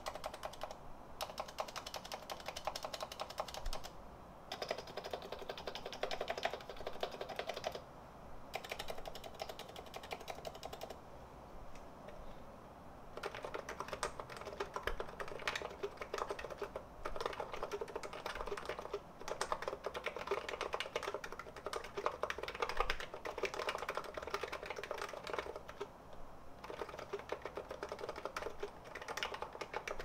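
Steady fast typing on a stock, unlubricated electro-capacitive (Topre-style) keyboard: a dense run of soft key presses, with a few short pauses and a longer one near the middle.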